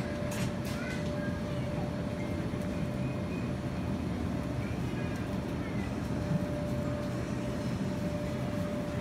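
Supermarket background noise: a steady low rumble with a constant mid-pitched hum, and faint voices in the background. A few brief clicks or rustles in the first second.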